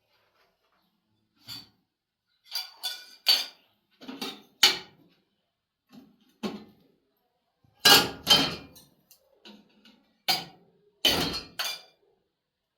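Dishes and utensils clinking and clattering: a run of separate sharp knocks, loudest about eight and eleven seconds in.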